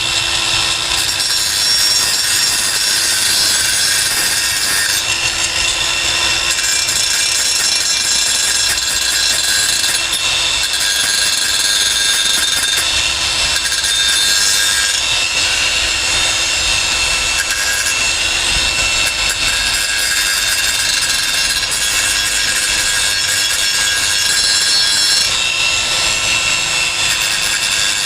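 Cordless (battery-powered) angle grinder running against work, a steady high whine with a grinding hiss whose texture shifts a few times.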